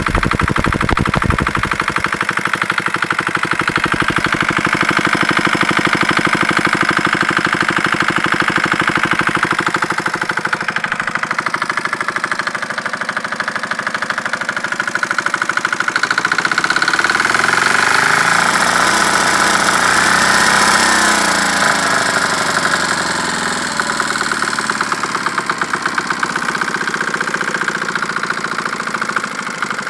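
Yanmar A2 single-cylinder diesel engine running with rapid, even firing beats; about halfway through its speed rises and then falls back.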